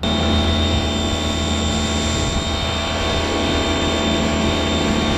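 Electric pressure washer running with a Ryobi 12-inch surface cleaner attached, its spinning twin jets spraying the concrete in a loud, steady hum and hiss that starts abruptly.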